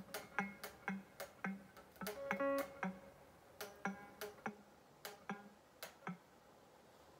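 Electric guitar played in short, choppy bar-chord strums, about three strokes a second, with one chord left ringing about two seconds in. The strumming thins out and stops about six seconds in.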